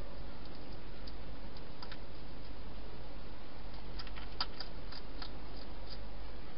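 Hedgehog feeding from a dish inside a plastic feeding box: scattered small crunching clicks, with a quick cluster of them about four to five seconds in, over a steady background hiss and low hum.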